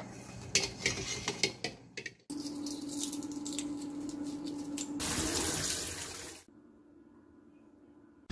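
Several sharp clicks and knocks of eggs against a metal strainer for about two seconds. Then water runs steadily into a steel sink while boiled eggs are peeled, swells louder, and cuts off suddenly.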